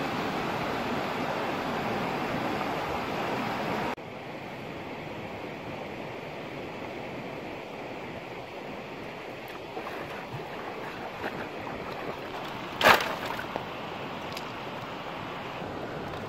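Shallow rocky stream running over stones, a steady wash of water that drops suddenly to a quieter level about four seconds in. Light knocks follow, and about 13 seconds in comes one sharp loud clatter, like wood striking stones.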